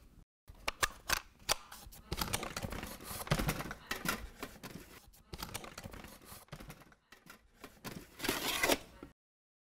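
Metal film canisters clicking, clinking and scraping against each other as a hand flips through them in a case: a quick, uneven run of clicks and rattles that stops abruptly near the end.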